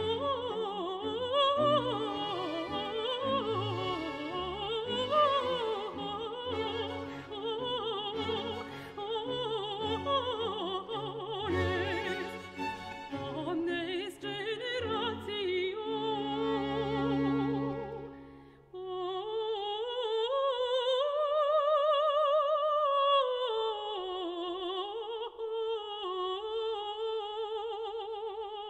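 Opera music: a singer with wide vibrato over an orchestra. A little past halfway the music dips briefly, then a long sung line rises and falls over lighter accompaniment.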